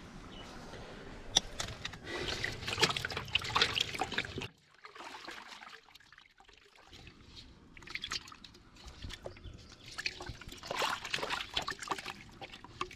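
Live catfish (magur) thrashing in shallow water in a metal basin, with sloshing and sharp splashes. The splashing comes in two spells, with a quieter lull between them.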